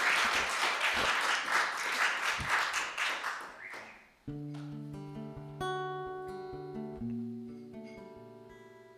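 Audience applause dying away over the first four seconds. Then an acoustic guitar plays three slow chords, about a second and a half apart, each left to ring and fade.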